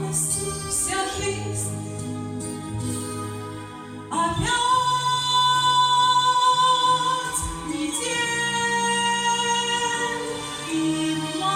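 Women singing a song with instrumental accompaniment; about four seconds in the voices come in louder on long held notes.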